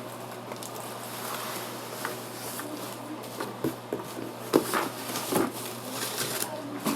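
Handling noises from unboxing: scattered clicks, knocks and rustles as the speaker and its parts are handled, loudest about four and a half and five and a half seconds in, over a steady low hum.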